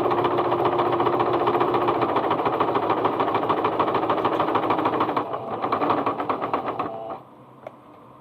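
Singer Starlet 6680 sewing machine stitching fast with a rapid knocking clatter, pausing briefly after about five seconds and stopping about seven seconds in. The knocking and heavy noise come from lint and dust built up inside the machine, which also leaves the stitch loose.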